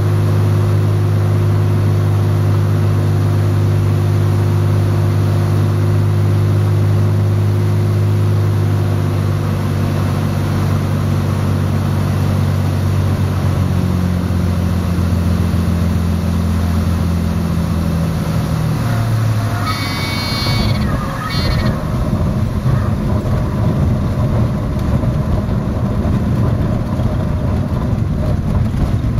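Single-engine light aircraft's piston engine droning steadily at reduced power on approach, its pitch shifting about halfway, then throttled back to idle around touchdown with a brief higher tone. The rest is a loud, rough rumble and rattle of the landing gear rolling on a bumpy grass airstrip.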